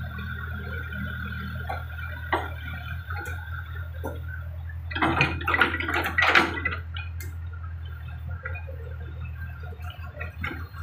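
JCB mini excavator running steadily with a low engine hum and a high whine that stops about four seconds in. A burst of knocks and clatter comes about five seconds in as the machine works its bucket in wet mud.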